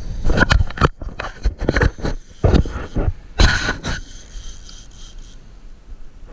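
Knocks, scrapes and rubbing from a hand handling a boat-mounted action camera, a quick irregular run of sharp thumps that dies down about four seconds in.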